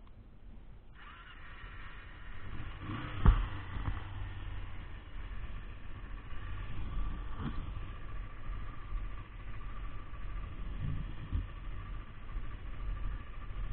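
Kawasaki Ninja 250's parallel-twin engine running at idle, with a single sharp knock about three seconds in.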